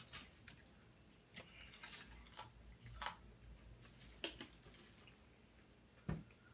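Close-up eating sounds: irregular wet chewing, smacking and mouth clicks. There is a soft low thump about six seconds in.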